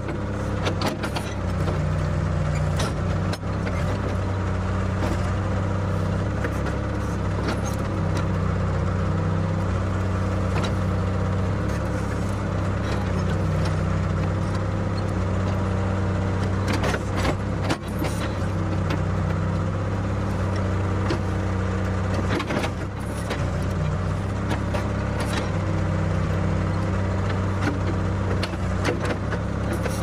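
Ford 555 backhoe running under load while its bucket digs roots out around a pine tree. The steady engine note steps up and down with the hydraulic work, with scattered knocks and clanks from the bucket and boom.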